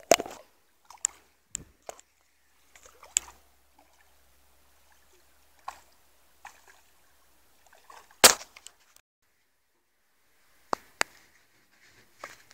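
Scattered sharp knocks and splashes as a hooked fish thrashes at the surface and is netted and brought onto the aluminium deck of a boat; the two loudest come at the very start and about eight seconds in.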